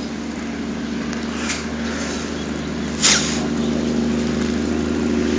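A small engine running steadily with a low, even drone, and one short, sharp noise about three seconds in.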